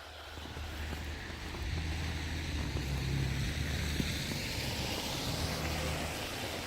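A vehicle driving past on a snow-covered street: a low engine hum and tyre hiss that swell to a peak a few seconds in, then slowly fade.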